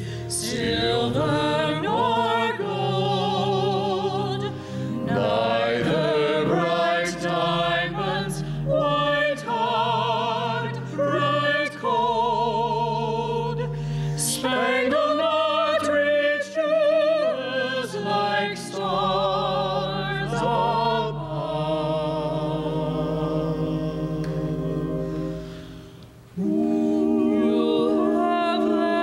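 Mixed vocal quartet of two women and two men singing a sacred anthem in harmony, their voices with vibrato. The singing breaks off briefly near the end, then comes back in.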